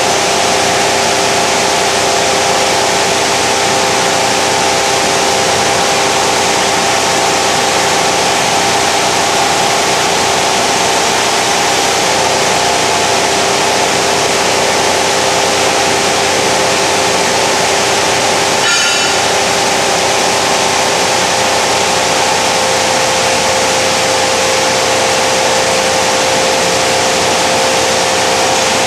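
Plastic recycling washing line machinery running: a loud, steady mechanical noise with a constant hum of several motor tones. A brief high-pitched squeal stands out about two-thirds of the way through.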